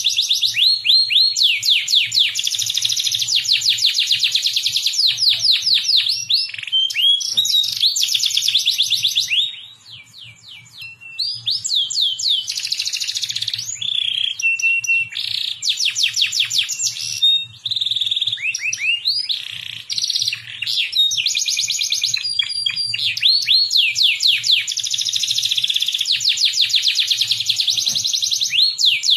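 Domestic canary singing a long, fast song of trills and rolls, each phrase a run of quick repeated high notes. The song breaks off briefly about ten seconds in.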